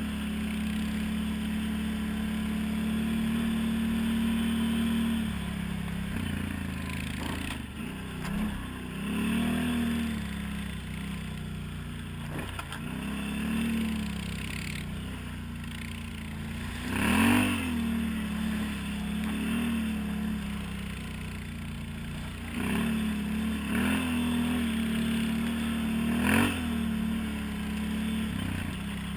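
Can-Am Outlander 1000 ATV's V-twin engine running steadily, then revved up and down again and again from about a quarter of the way in. The loudest revs come a little past the middle and again near the end.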